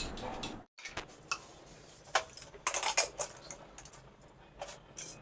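Scattered light clinks and knocks of kitchen utensils and cookware being handled, a few sharper ones around the middle.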